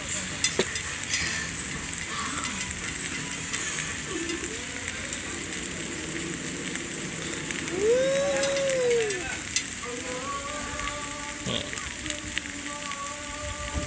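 Steady crackling sizzle of food cooking on a steamboat grill, with faint ticks throughout. About eight seconds in a brief hum rises and falls, and steady pitched tones run over the last few seconds.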